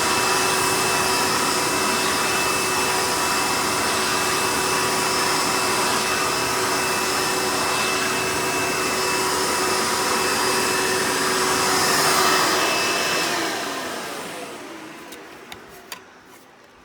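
Hoover Elite upright vacuum's direct-air motor and fan running steadily with a whine. It is switched off about thirteen seconds in, and the whine falls in pitch as the fan spins down. A few light clicks come near the end.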